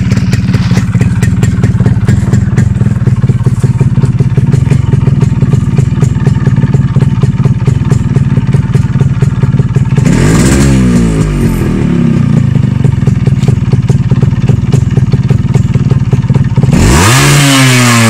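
Yamaha RX 135's single-cylinder two-stroke engine idling with a fast, even beat. It is revved briefly about ten seconds in and again near the end, the pitch rising and then falling each time.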